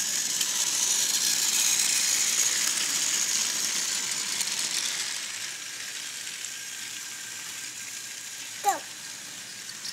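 Steady whirring hiss of a simulated 8mm film projector, a sound effect laid over the footage; it fades a little after about five seconds. A short falling squeal comes near the end.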